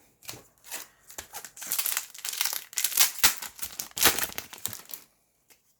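Foil wrapper of a Yu-Gi-Oh booster pack crinkling and tearing as the pack is opened. Scattered light crackles at first, then dense crinkling that stops about five seconds in.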